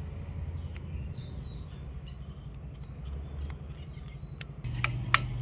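Outdoor background sound: a steady low hum with faint bird chirps about a second in, then a few sharp clicks in quick succession near the end.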